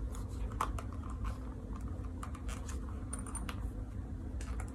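The back zipper of a Dolce Vita suede ankle bootie being worked by hand, a run of small, irregular clicks and scratches as the pull catches and slides along the teeth.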